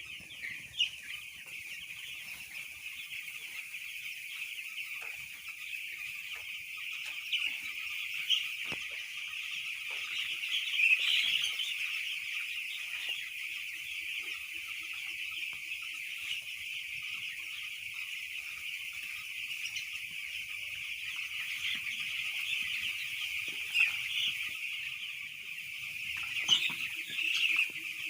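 A large flock of young chicks peeping continuously, a dense high chorus of overlapping chirps, with a few louder peeps standing out now and then.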